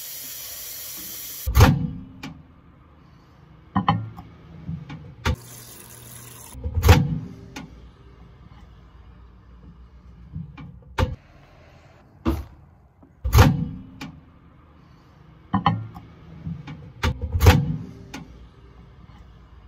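Kitchen faucet running water into a ceramic bowl for about a second and a half, then a string of sharp clunks and knocks spaced a second or more apart as the bowl is handled and a microwave door is opened and shut.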